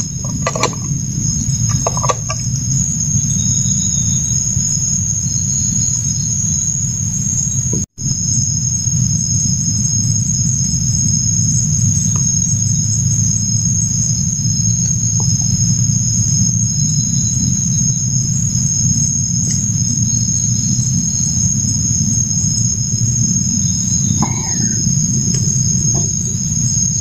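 Night insects trilling steadily at two high pitches over a constant low rumble of background noise, with a few faint knocks.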